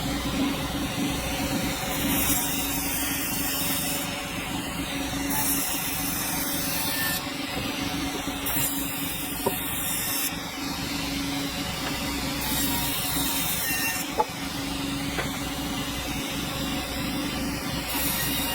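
Sawmill running steadily with a constant hum and hiss, a couple of brief clicks partway through.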